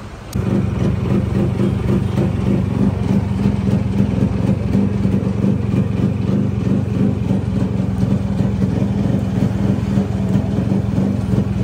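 Yamaha RX100's two-stroke single-cylinder engine, freshly restored with a new piston, idling steadily; its sound comes in abruptly about half a second in.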